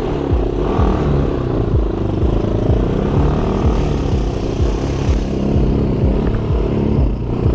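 ATV engine running steadily under way on an off-road track, with frequent irregular low knocks from the rough ground.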